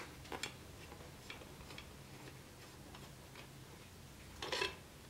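Faint, scattered clicks and light taps as the knife and small metal parts are handled, with a louder one about four and a half seconds in.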